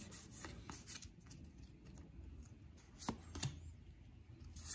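Faint handling of a stack of Pokémon trading cards: soft rustling and light flicks as cards are slid through the hands, with a couple of sharper clicks about three seconds in.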